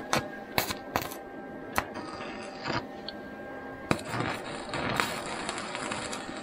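Stick (arc) welder crackling and sizzling while steel rod is welded, in stretches with short breaks between them, with several sharp metallic ticks.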